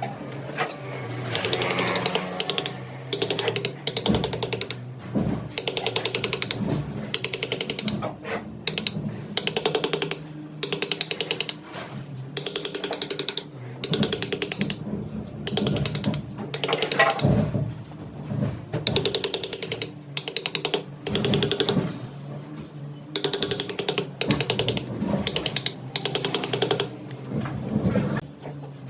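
Wood lathe turning while a cutting tool bites into the spinning wood in repeated passes, each pass a rapid clattering of ticks lasting about a second, over the steady hum of the running lathe.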